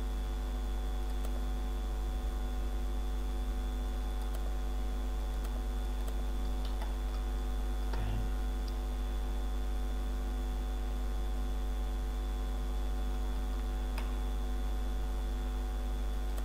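Steady electrical mains hum in the recording, with a few faint scattered clicks.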